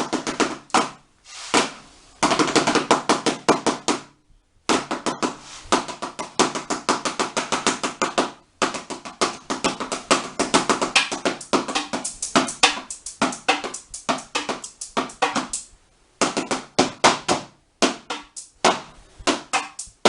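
Two sticks drumming fast rhythms on an empty tin, a found-object percussion performance, in dense runs of strokes broken by a few short pauses.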